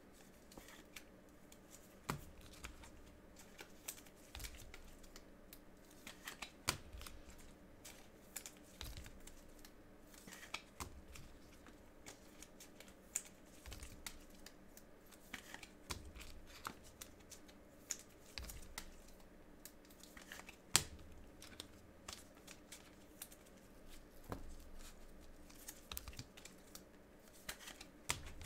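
Faint rustling, soft taps and scattered sharp clicks of trading cards and their packaging being handled and opened, the sharpest click about two-thirds of the way in.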